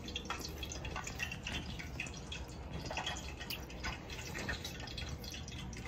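Hot cooking oil on the stove crackling and popping irregularly as food fries in it.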